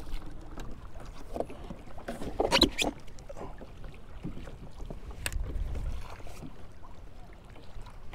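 Water slapping and sloshing against a kayak hull in choppy water, broken by a few short sharp sounds, the loudest a cluster about two and a half seconds in. A low wind rumble on the microphone follows about five seconds in.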